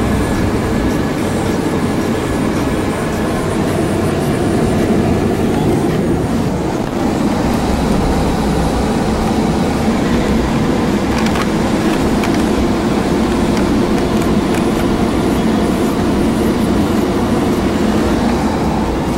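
Steady engine and road rumble heard inside a moving van's cabin, with a few light rattles about two-thirds of the way through.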